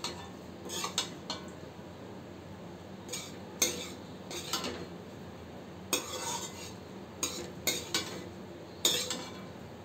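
Metal slotted spatula scraping and clinking against a metal kadhai as cooked rice is stirred and mixed, in short irregular strokes every second or so.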